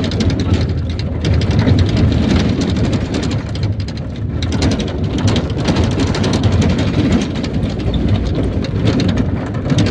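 IVECO Daily bus driving, heard from inside the cabin: steady engine and road rumble with constant rattling and clatter from the body.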